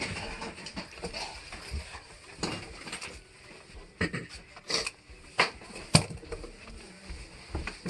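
Irregular light clicks and clacks of plastic Easter eggs being handled and knocked together, with a few sharper knocks about two-thirds of the way through.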